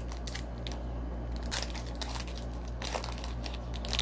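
Trading cards being handled by hand: crinkly rustles and scrapes at irregular intervals of about half a second to a second, over a steady low electrical hum.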